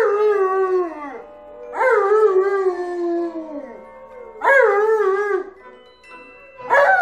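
Alaskan Malamute howling: three long, wavering calls that start high and slide down in pitch, with a fourth beginning near the end.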